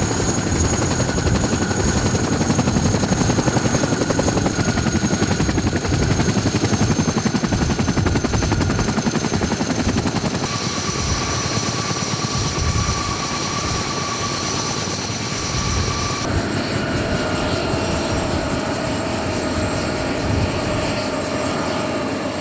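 Columbia Model 234 Chinook tandem-rotor helicopter running on the ground: a fast, steady beat from its two turning rotors under a high, steady turbine whine. The whine shifts pitch about ten seconds in and again about sixteen seconds in.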